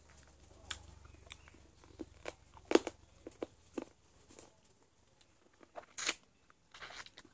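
Close-up eating sounds: a person biting, tearing and chewing chicken, with scattered sharp crunches and clicks, the loudest about three seconds in and again about six seconds in.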